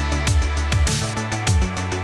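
Electronic background music with a steady beat: deep bass-drum hits that drop in pitch, with crisp percussion over them.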